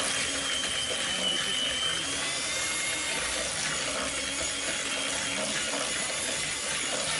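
Electric mixer switched on and running steadily at speed, beating the butter, lemon zest and cake batter in a bowl.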